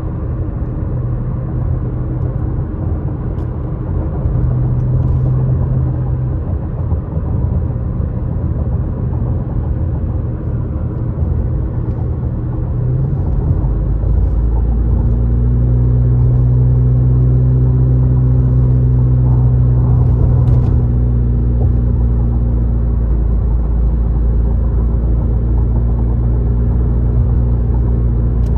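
Car driving on the road, heard inside the cabin: a steady low rumble of engine and tyres, with a steady low drone coming in about halfway through.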